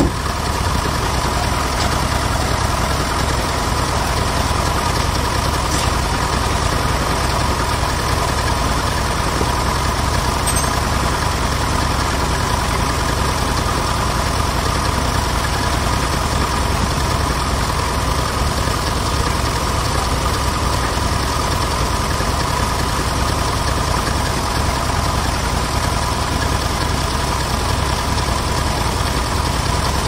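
Large band sawmill machinery running steadily, a continuous mechanical drone with a steady hum in it that does not change.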